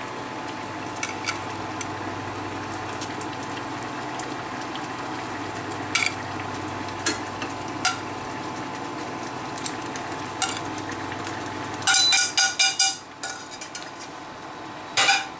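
Sauce sizzling steadily in a frying pan while metal tongs click against a china plate and the pan as veal cutlets are moved into it. About twelve seconds in comes a burst of rapid ringing clinks, after which the sizzle is quieter; a few more clinks near the end.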